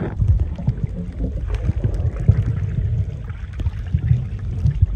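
Water heard through a submerged camera's microphone while snorkeling: a steady low rumble of water moving around the camera, with faint scattered clicks.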